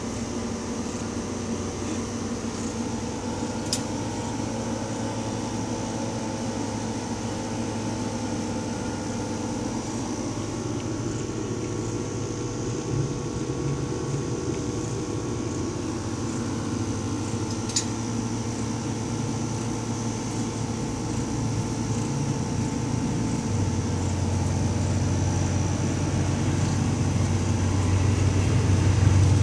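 A steady low hum with a few faint steady tones above it, growing louder in the low range near the end; two faint ticks, one a few seconds in and one a little past halfway.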